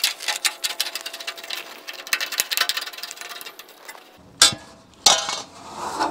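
Left-cut tin snips cutting a sheet-metal downspout: a fast run of crisp clicking snips for about four seconds. After that come two sharp knocks, the loudest sounds, about half a second apart.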